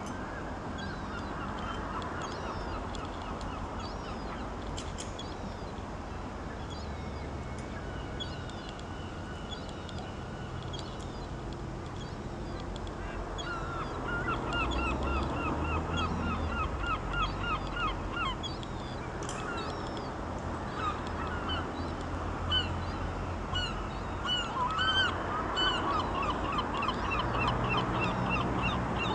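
Many birds calling at once, overlapping series of short quick notes repeated about three times a second, getting busier and louder about halfway through, over a steady low rumble.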